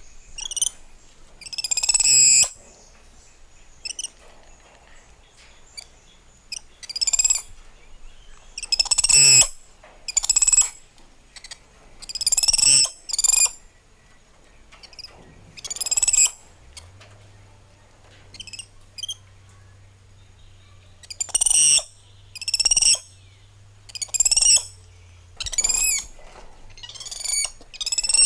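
Spider monkeys calling: a series of about fifteen high-pitched chirps and screeches, each under a second long, coming one to a few seconds apart, some in quick pairs.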